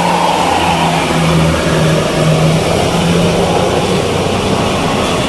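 A bus passing close by with its engine accelerating: loud engine and road noise, with a low engine hum that swells and dips.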